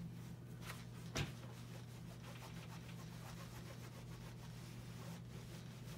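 Faint rubbing of a clothes iron gliding over fabric on an ironing board, over a steady low hum, with one sharp click about a second in.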